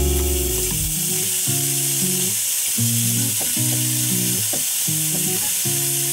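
Bacon pieces frying in a hot pan: a steady sizzle that starts as they go in and carries on while they are stirred. Background music plays underneath.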